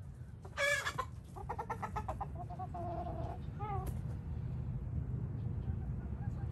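Chickens calling: a loud squawk about half a second in, then a quick run of clucks and a drawn-out call, and a last short falling call just before four seconds. A steady low rumble lies underneath.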